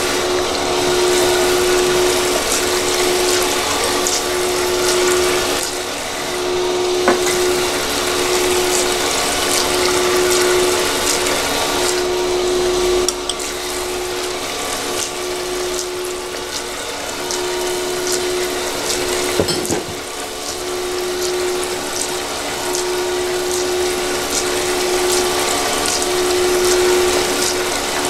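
Automatic gold panning machine running: water from its pump pours through the spray tube and splashes over the spiral pan into the tub. Under the splashing is a steady motor hum that swells and fades about every second and a half, with a couple of light knocks.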